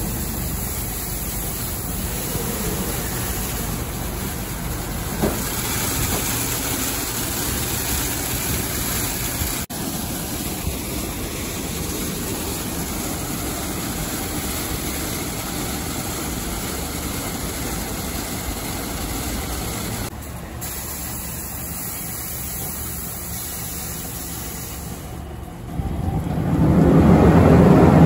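Steady running noise of a gantry car wash machine. Near the end a much louder, fuller blowing rush comes on, like the drying blowers starting.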